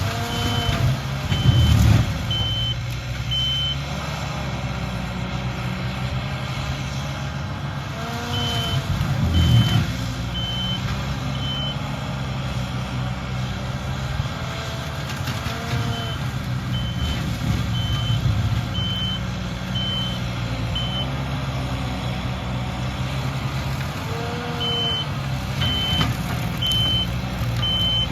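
Skid steer working brush, its engine running steadily under changing load. Its backup alarm beeps in several runs of short, even beeps, and the machine surges louder about two seconds in and again around nine seconds.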